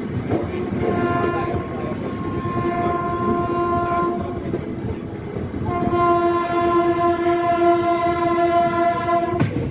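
Indian Railways train horn sounding two long steady blasts of about three and a half seconds each, as the train runs through a station without stopping, over the steady running noise of the moving train.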